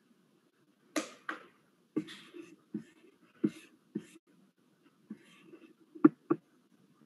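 Scattered short, light clicks and taps, about ten of them at uneven intervals, with the two sharpest close together about six seconds in.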